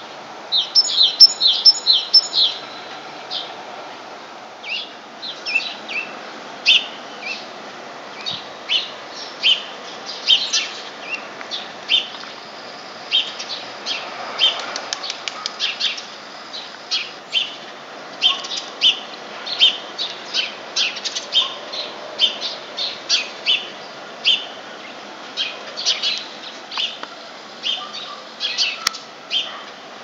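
Small songbirds chirping: a quick run of loud chirps in the first seconds, then short chirps every half second or so throughout, over a steady background noise.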